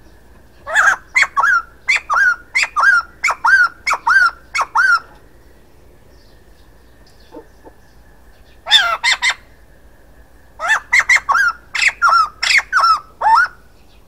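Male white-crested laughingthrush calling: three bouts of loud, rapid, repeated notes, about three a second, the first lasting about four seconds, a short one of three or four notes near nine seconds in, and a longer one near the end.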